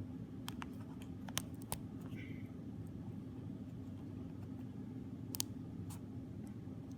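Steady low background hum with a handful of small, sharp handling clicks: several bunched in the first two seconds and two more about five and a half seconds in. The clicks come from fingers working tape off the battery connection inside an opened iPod.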